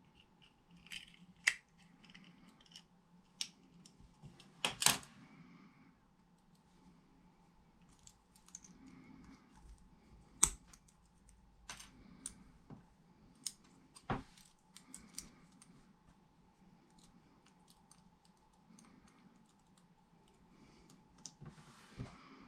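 Scattered small plastic clicks and taps from handling a diesel heater's remote control: its case being opened and a battery fitted. A faint steady tone runs underneath.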